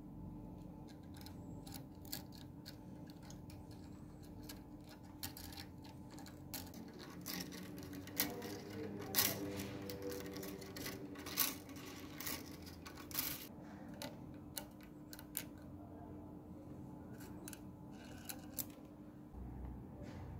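Steel clock mainspring being worked out of its barrel by hand: scattered light metallic clicks and scrapes of the spring coils. A few louder clicks come in the middle, with a brief ring as the spring comes loose.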